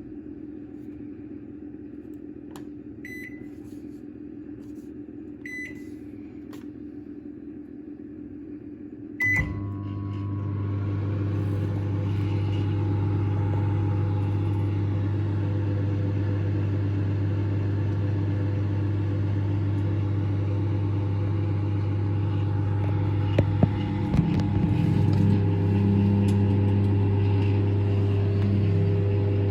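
Microwave oven: two short keypad beeps, then a third beep about nine seconds in as it starts, followed by the steady hum of the oven running, with a few small clicks partway through.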